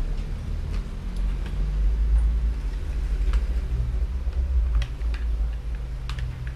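A steady low rumble with a few sharp, small clicks scattered through it, the clicks from small plastic parts being handled at a workbench.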